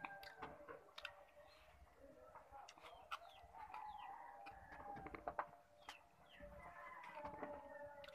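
Faint chickens: roosters crowing in long drawn-out calls and hens clucking, with short chirps of small birds and a few light clicks of fingers working rice on a plate.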